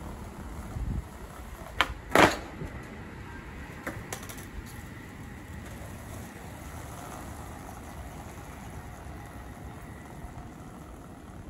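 Skateboard hitting pavement: a sharp clack and then a louder slap of the board on the ground about two seconds in, followed by a few lighter clicks, over a steady low background rumble.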